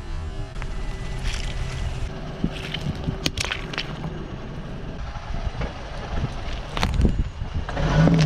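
Car running slowly, with a few sharp cracks and crunches as objects are crushed under its tyres.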